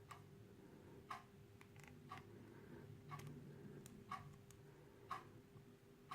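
Near silence in a small room, with a clock ticking faintly about once a second and a few fainter, irregular small clicks in between.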